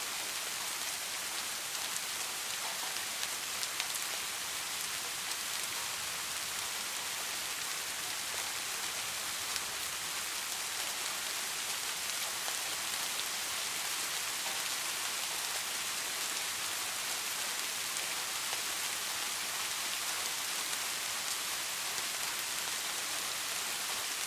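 Steady rain falling on a surface, an even hiss with many small drop ticks, no thunder.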